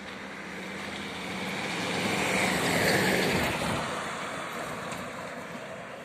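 A van passing on an asphalt road, its engine and tyre noise swelling to loudest about three seconds in, then fading as it drives away.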